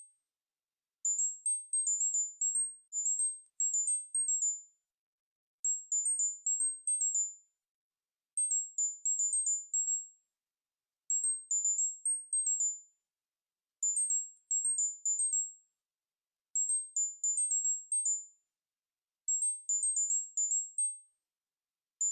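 Tinnitus-relief tone: quick runs of short, very high-pitched electronic beeps that hop between a few close pitches. Each run lasts about a second and a half, and runs repeat about every two and a half to three seconds with silence between them.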